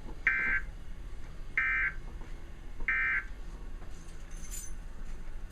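Emergency Alert System end-of-message data signal: three short, identical buzzy bursts of digital data tone, about 1.3 seconds apart, marking the end of the alert.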